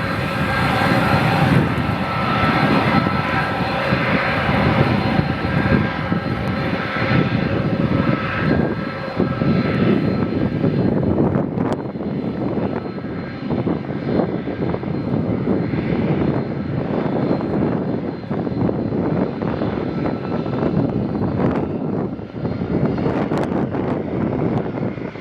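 Airbus A300-600's twin turbofan engines at departure power: a loud, continuous jet roar with a steady high whine that fades about halfway through, leaving the low rumble.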